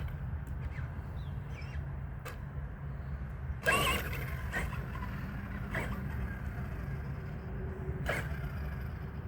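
Handling noise from a camera on a tripod being moved: a steady low rumble with a few scattered clicks and knocks, and one loud knock a little before the middle.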